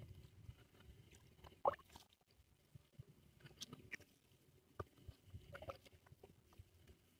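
Faint drips and small splashes of water as a gill net is lifted and pulled along by hand, with a few scattered soft plops. The loudest comes about a second and a half in.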